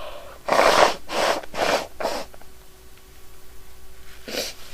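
A woman blowing her nose: four forceful, noisy blows in quick succession, then a shorter one near the end.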